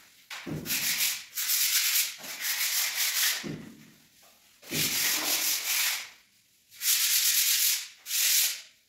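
Sandpaper rubbed by hand over dried wall putty on a ceiling, in fast back-and-forth strokes. It comes in about five spells of one to two seconds, with short pauses between them.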